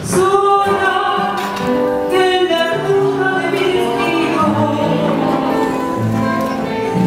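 A woman singing a tango into a microphone, accompanied by guitars.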